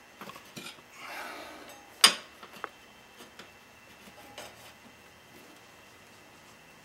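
A steel tire iron scraping and clinking against a spoked motorcycle wheel rim while the last of the tire bead is levered on by hand, with rubber rubbing. One sharp metallic clank about two seconds in, a couple of lighter ticks just after, then only faint small knocks.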